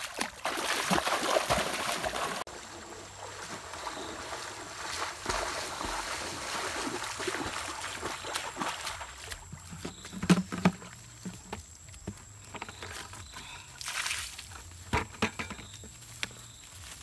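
Water splashing and sloshing as a person wades through a shallow river. About nine seconds in it gives way to quieter footsteps and a few sharp knocks on leaf-covered ground.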